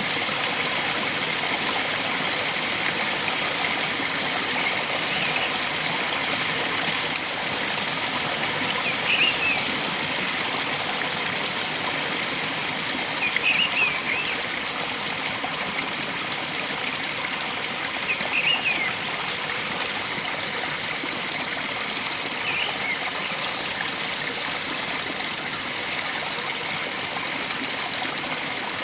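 Steady flowing water, a stream's continuous rush, with short bird chirps breaking in every four or five seconds.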